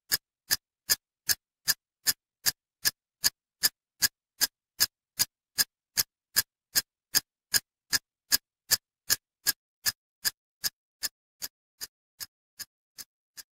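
Steady clock-like ticking, about two and a half ticks a second, as a countdown sound effect; the ticks fade away over the last few seconds.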